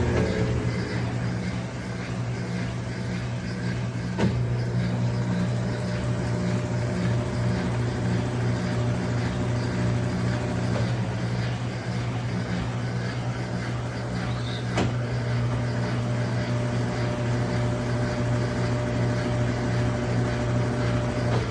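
Brastemp BWL11 top-loading washing machine in its spin cycle, the motor and drum running with a steady hum. There are two sharp clicks, about 4 and 15 seconds in. The spin test is passing: the machine centrifuges normally.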